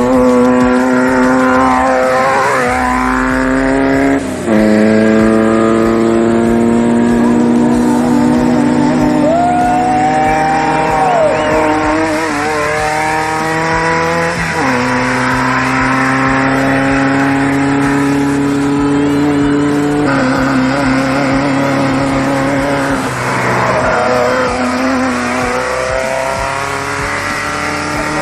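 Off-road race vehicle engine running hard under acceleration, its pitch climbing steadily and then dropping abruptly at each gear shift, several times over.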